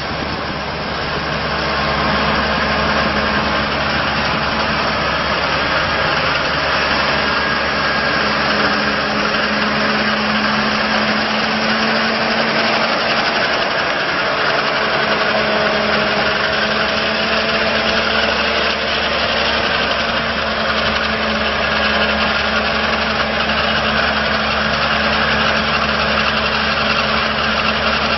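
Deere diesel engine of an asphalt paver running steadily at a constant speed.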